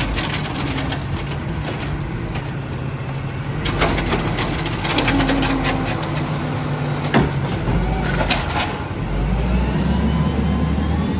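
Autocar Xpeditor garbage truck with its automated side-loader arm dumping a trash cart: the engine runs with a steady hydraulic hum, and sharp clanks come as the cart is shaken out and set back down, around four seconds in and again around seven to eight seconds. Near the end the engine's low rumble grows heavier.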